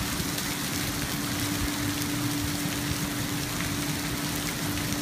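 Heavy rain and hail pouring down onto pavement during a hailstorm: a dense, steady hiss, with a steady low hum underneath.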